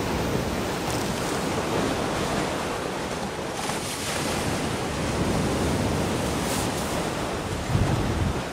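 Wind buffeting the microphone over the wash of a choppy sea, with a stronger gust near the end.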